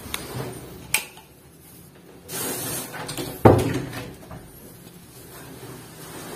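A sharp click about a second in, a short rush of noise, then a loud thump with a brief ringing about halfway through, the sound of a door or cupboard being knocked or banged.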